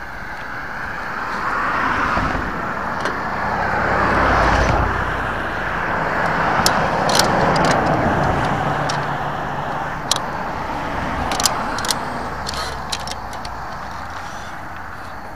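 Cars driving past on a highway: tyre and engine noise swells and fades as the vehicles go by, loudest about four seconds in. A few sharp clicks come in the second half.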